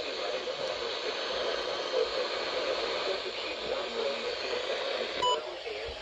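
Weather radio receiver hissing with static, a faint, garbled broadcast voice underneath. A short beep comes near the end.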